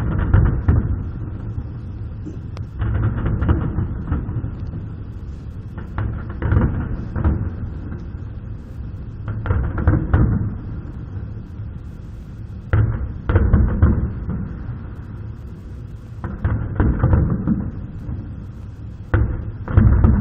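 Fireworks going off: a series of booms about every three seconds, each a sharp bang followed by a low rumble that dies away.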